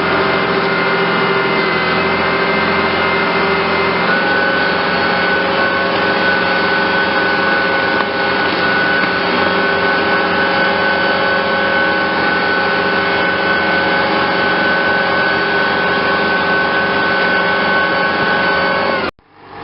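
Tractor engine running steadily while pulling a tree planter. Its pitch steps up slightly about four seconds in, and the sound cuts off abruptly near the end.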